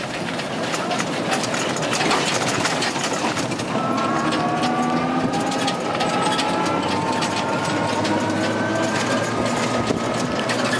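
Small open-sided passenger vehicle driving over a rough dirt road: steady road and wind noise with constant rattling and bumping of the body. From about four seconds in, a whine from its drive rises slowly in pitch as it picks up speed.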